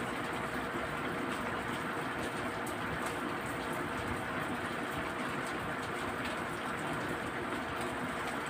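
Steady, even background hiss with a faint steady hum and a few faint ticks; no distinct event stands out.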